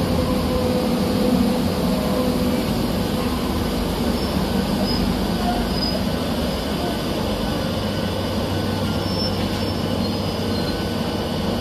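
Madrid Metro Line 5 electric train running on the rails, a steady dense rumble of wheels on track with a few faint, brief high squeals.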